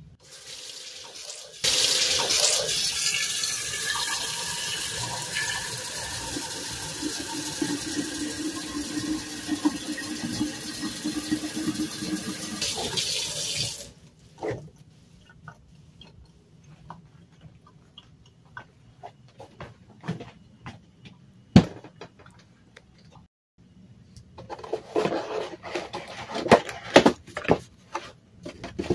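Kitchen faucet running water into a large glass jar in the sink for about twelve seconds, then shut off sharply. Scattered small clicks follow, and near the end a run of light knocks and taps from handling.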